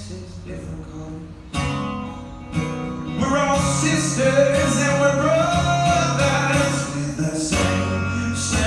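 Acoustic guitars playing a song, coming in strongly with a strummed chord about a second and a half in. A man's voice joins about three seconds in, singing a long, held melody line.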